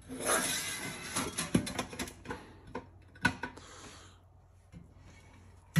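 Stainless steel half-height tray sliding into a Travel Buddy 12 V Marine oven, metal scraping on metal for about two seconds with small clicks, then a few separate knocks as it settles in place.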